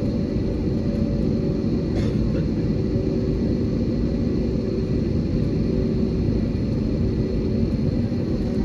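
Steady cabin rumble of an Airbus A320-family jet airliner taxiing: engine noise and wheel rumble, with a thin steady high whine over it. A faint click about two seconds in.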